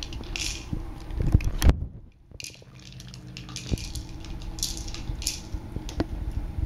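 Dry kibble rattling and clattering inside a hard plastic treat-dispensing ball as a dog pushes it around, with scattered clicks and knocks; the sharpest knock comes near the two-second mark, and the sound drops away briefly just after it.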